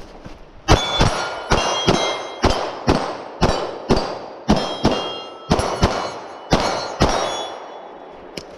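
A rapid string of about fifteen gunshots, roughly two a second, each followed by the ringing clang of a struck steel target. The string starts just under a second in and stops about a second before the end.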